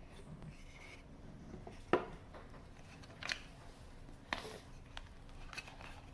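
Scattered light clicks and taps, six or so, the loudest about two seconds in, over a faint steady hum.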